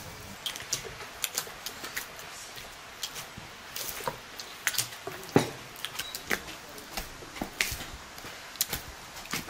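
Hands kneading a large mass of soft bread dough in an aluminium basin: irregular wet squelches and sticky pops as the dough is pressed and pulled, with one louder slap a little past halfway.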